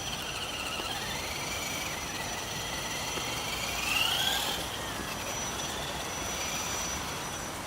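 Axial RC jeep's electric motor whining as it drives, its pitch wavering with the throttle and rising sharply about four seconds in before dropping back.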